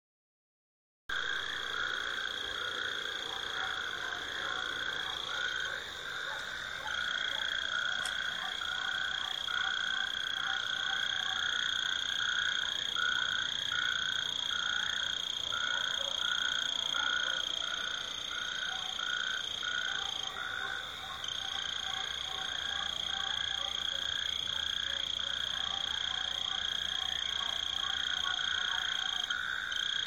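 Frogs chorusing, many short calls repeated about two a second, over a steady high-pitched trill; a breeding chorus of males calling to mate. It starts about a second in.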